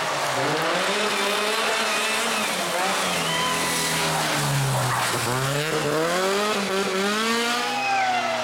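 Rally car engine at high revs, the pitch dropping as it slows into a corner about halfway through, then rising hard in several sweeps as it accelerates away.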